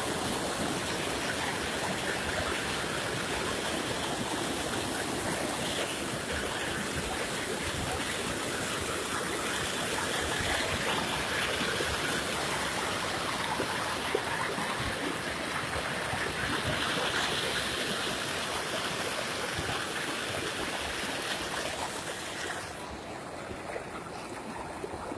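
Floodwater rushing, a steady wash of water noise; it drops quieter and duller near the end.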